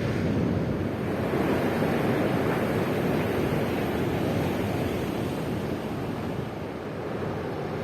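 Ocean surf breaking and washing on the shore, a steady rushing that swells about a second in and eases near the end.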